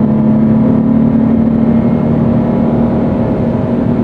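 A 2013 Scion FR-S's 2.0-litre flat-four boxer engine drones at steady revs, heard from inside the cabin along with road rumble.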